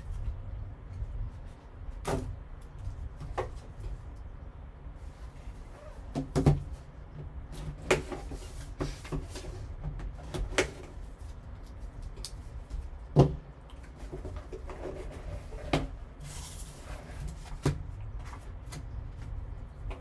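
Cardboard box being unsealed and opened by hand: a serrated folding knife slitting the seal stickers, and the lid knocking and sliding off. It is heard as scattered sharp taps and knocks with a brief brushing sound, over a low steady hum.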